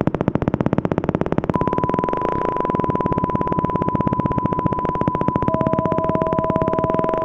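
Synthesized electronic music: a fast, even pulsing, with a steady pure tone coming in about a second and a half in and a second, lower tone joining near the end.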